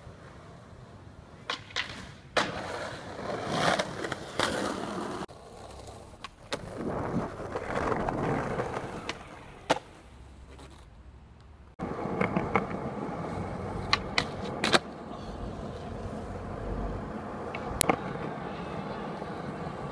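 Skateboard wheels rolling over concrete and asphalt, with sharp clacks of the board popping and landing, across several separate clips.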